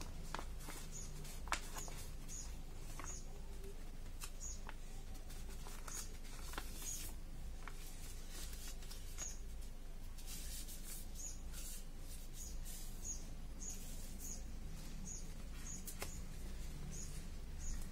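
Sheet of origami paper rustling and crinkling as it is folded and creased by hand on a tile surface, with scattered sharp taps and clicks, the loudest about a second and a half in. A faint short high chirp repeats every half second or so underneath.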